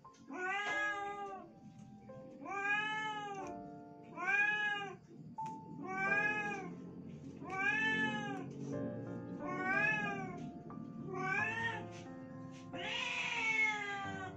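Domestic cat meowing over and over, eight meows about every second and a half, each rising and then falling in pitch; the last one is longer. Quiet background music runs underneath.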